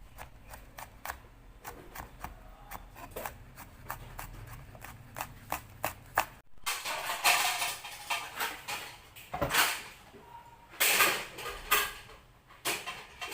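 Kitchen clatter: a run of sharp clicks and knocks from dishes and utensils being handled, louder and busier after a brief break about six and a half seconds in.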